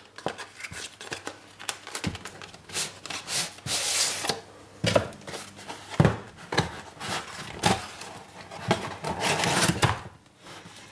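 Cardboard packaging handled as it is opened: a sleeve slid off a white cardboard box and the box lid lifted open, with irregular rubbing and scraping and a few light knocks.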